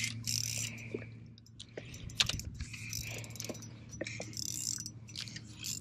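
Soft handling clicks and rustles of a spinning rod and reel being readied for a cast, over a steady low hum. There is one sharper click about two seconds in.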